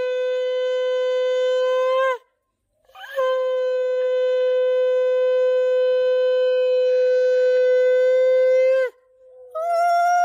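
Conch shell (shankha) blown in long, steady blasts: one ends about two seconds in, a second is held for nearly six seconds, and a third, slightly higher, starts near the end. The conch is sounded to welcome the mut, the ritual sheaf being carried home for the puja.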